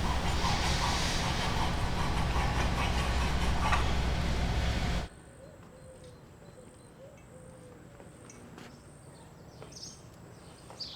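Loud, steady factory machinery noise with a low hum, cutting off abruptly about five seconds in. What follows is quiet ambience with a few faint bird chirps.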